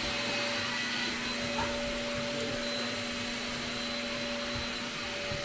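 Vacuum cleaner running steadily: a constant motor whine over the even rush of air.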